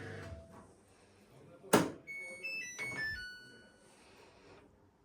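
A sharp click or knock, then the Samsung washing machine's electronic jingle: a quick run of short beep notes that mostly steps down in pitch. A low hum dies away just before.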